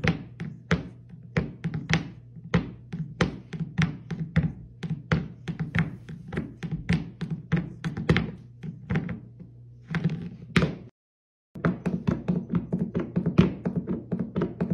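A cat tipping its empty food bowl and letting it drop on a hardwood floor again and again, about three knocks a second, begging for supper. The rhythm breaks off for a moment about eleven seconds in, and music plays underneath.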